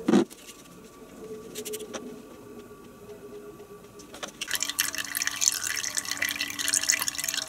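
A short knock right at the start, then, from about halfway through, engine oil pouring and splashing as a little fresh oil is run through the engine to flush the old oil out of the bottom of the sump.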